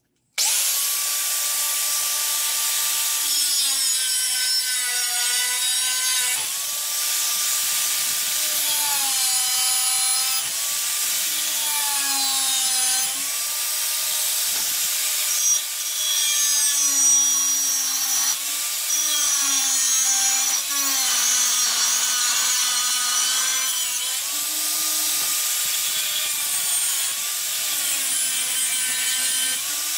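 Electric angle grinder cutting and grinding the steel blade of an old meat axe. The motor's whine dips in pitch again and again as the disc is pressed into the metal, over the scraping hiss of the disc on steel. It starts abruptly about half a second in.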